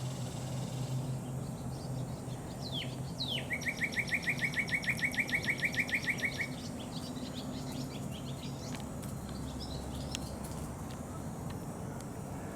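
A songbird sings two falling whistles, then a rapid, even trill of about twenty short notes lasting about three seconds. A steady low hum runs beneath it.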